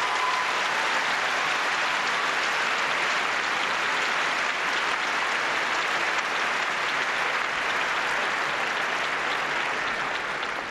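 Arena audience applauding steadily, easing off near the end.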